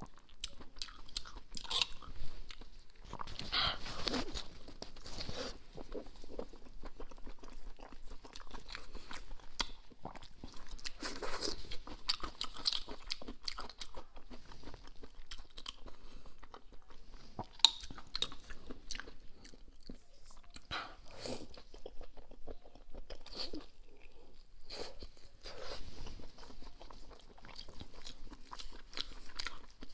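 Close-miked eating of spice-coated shellfish: shells cracking and tearing by hand, with wet chewing and lip smacking. The crackles come irregularly and closely spaced.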